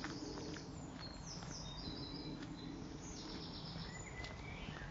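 Birds singing and calling in short, high-pitched phrases and trills, over steady low background noise.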